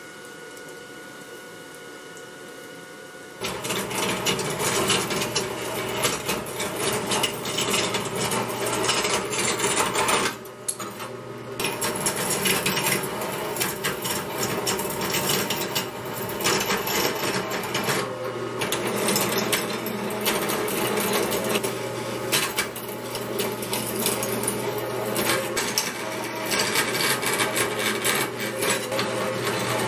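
Metal-cutting bandsaw sawing the gates and sprue off a cast aluminum bronze hatchet head: a steady motor hum under a dense rasping of the blade through the bronze. It starts suddenly about three seconds in, after a low steady hum, and eases off briefly twice, around ten seconds and around eighteen seconds in.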